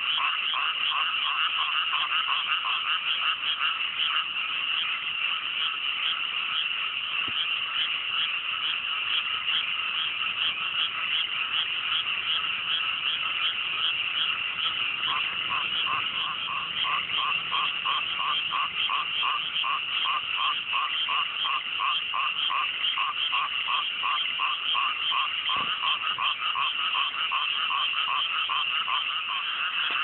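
A dense chorus of many frogs calling together in flooded rice paddies. From about halfway, one nearer frog stands out with a fast, regular series of calls.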